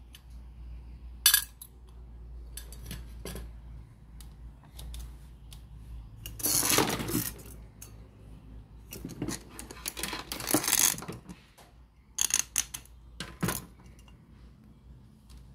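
Scattered clinks, clicks and rattles of small metal objects being handled, with a sharp click about a second in and louder clattering bursts in the middle and near the end.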